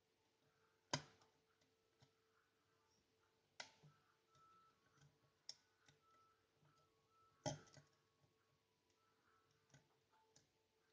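Quiet, scattered clicks of a half-diamond lock pick working the pins of a five-pin eurospec rim cylinder, with sharper clicks about a second in, around four and five and a half seconds, and about seven and a half seconds in.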